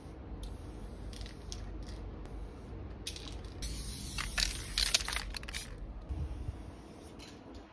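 Aerosol spray paint can hissing in short bursts as strokes are sprayed onto a wall, the bursts coming thickest and loudest about halfway through.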